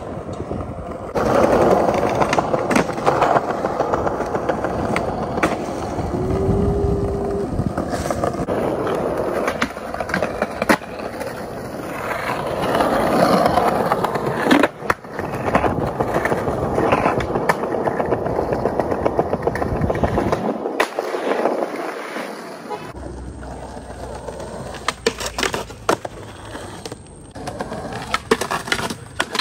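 Skateboard wheels rolling over paved plaza tiles, broken by sharp clacks of the board's tail popping and the deck landing. Several short takes are spliced together, so the rolling noise cuts off and restarts a few times.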